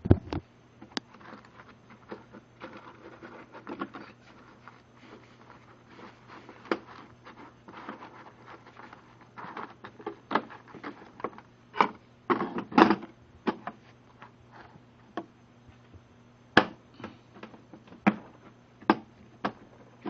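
Hand tools and a plastic tool-kit case being handled: irregular clicks, knocks and light rattles as pieces such as Allen wrenches are fitted back into their places, with a cluster of louder knocks about twelve seconds in.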